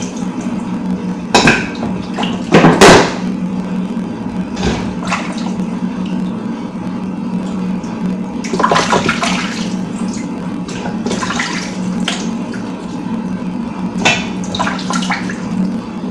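Water running from a kitchen tap into a sink while something is washed by hand, with irregular splashing and two louder splashes or knocks in the first three seconds.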